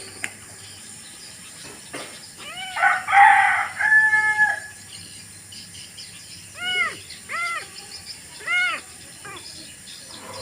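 Animal calls: one long, loud call with a held note about three seconds in, then four short arched calls in the second half.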